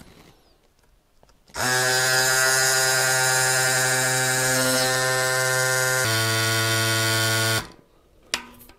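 Cycplus AS2 Pro electric mini bike pump starting about a second and a half in and running with a steady whine while it inflates a mountain bike tyre through a Schrader valve. Its pitch drops a little about six seconds in, and it stops suddenly near the end.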